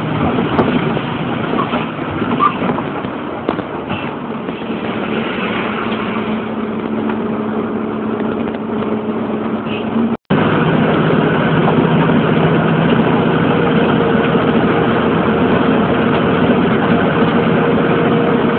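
Bus engine running, heard from inside the passenger cabin as a steady loud noise with an engine hum underneath. The sound cuts out for an instant about ten seconds in and comes back slightly louder, with the hum at a changed pitch.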